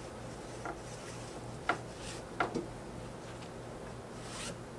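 Handwork along an aluminum straightedge on heavy fabric: a few short scraping rubs and several light clicks and taps, over a steady low hum.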